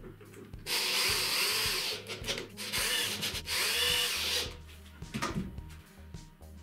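Cordless drill/driver driving two wood screws into the side of a wooden box, two runs of about one and a half to two seconds each with the motor's whine.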